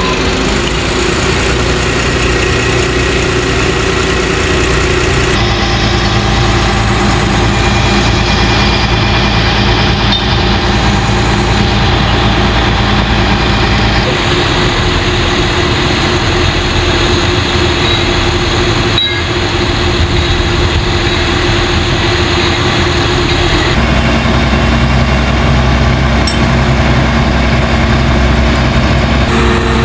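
Heavy diesel machinery engines running steadily at idle to moderate revs, the engine note changing abruptly a few times.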